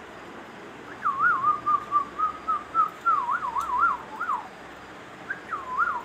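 Ring-necked parakeet whistling a warbling phrase, its pitch swinging quickly up and down, from about a second in until about four and a half seconds, then a short second phrase near the end.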